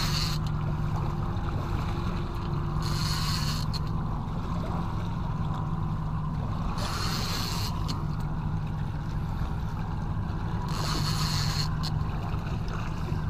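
A boat's engine runs steadily at idle with a low hum. A hissing swell rises for about a second roughly every four seconds.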